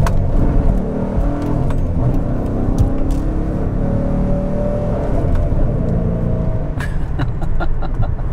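Dodge Challenger R/T's 392 HEMI V8 with an aftermarket cam, pulling hard under acceleration: the revs climb over the first couple of seconds, then hold steady for a few seconds. A few sharp clicks sound near the end.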